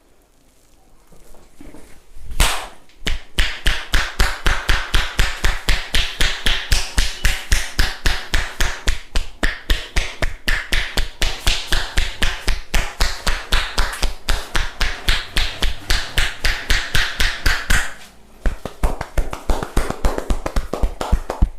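Hands striking rapidly and evenly in percussive massage, about five slaps a second. A single hit comes about two seconds in, and the strikes break off briefly near the end before starting again.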